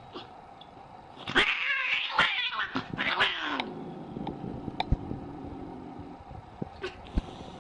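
A young grey cat hissing and growling in an angry outburst lasting about two seconds, starting about a second in and ending in a falling growl. A few short soft knocks follow.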